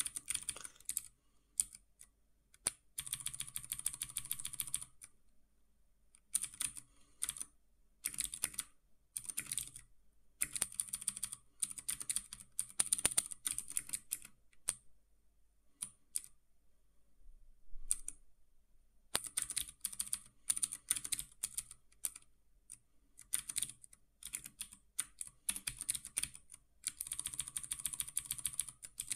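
Typing on a computer keyboard: bursts of quick keystrokes broken by short pauses, with a longer lull of a few seconds about halfway through.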